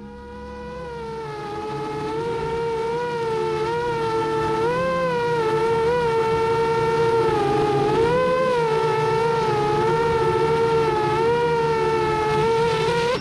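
Motors and propellers of a 7-inch FPV quadcopter in flight: a steady high whine that grows louder over the first few seconds, its pitch rising and falling several times as the throttle changes.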